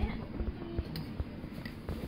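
Restaurant ambience: background music and diners' chatter, with a few sharp clinks of dishes and cutlery.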